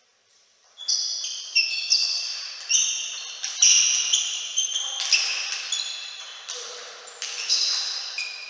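Table-tennis rally: the ball being struck by the bats and bouncing on the table, a sharp hit every half second to second, each one ringing on and fading in a large hall. It starts about a second in.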